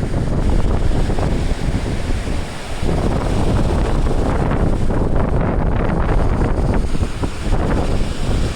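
Gusty wind buffeting the microphone, with the wash of surf beneath it; the wind eases briefly a little under three seconds in.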